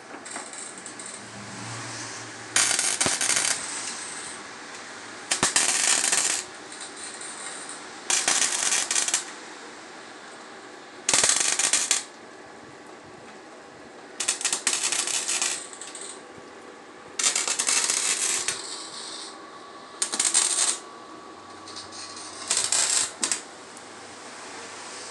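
A power tool run in eight short, harsh bursts, each about a second long, every two to three seconds.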